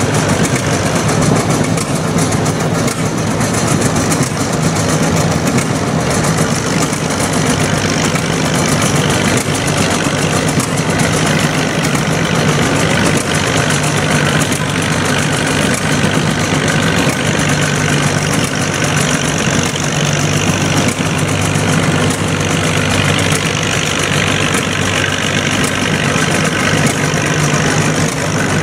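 Old International Harvester farm tractor engines idling steadily at low speed, waiting to hook to the pulling sled.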